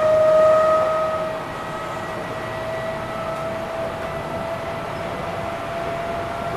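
Electric train's traction motors whining, heard from the driving cab of an Enshu Railway 2000-series car: a steady high tone with overtones that rises slowly in pitch as the train gathers speed, over the running noise of the wheels on the track. The whine is loudest in the first second and a half, then settles.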